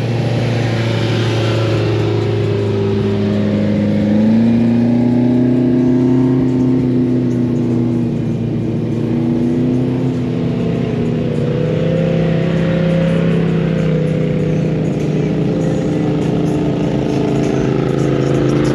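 Lifted side-by-side UTV engines running as the machines drive slowly past one after another, the pitch rising and falling with the throttle.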